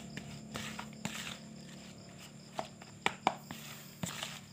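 Plastic spatula stirring and scraping a damp, crumbly fish-bait mix in a plastic bowl, with irregular scrapes and taps against the bowl's side over a faint low hum.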